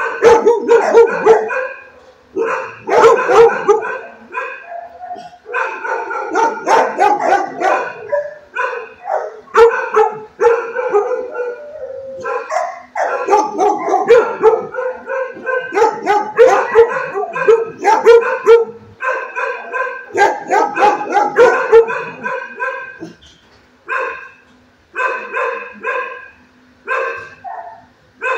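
Kennelled dogs barking: quick repeated barks in long runs with brief gaps, breaking into shorter separate bursts in the last few seconds.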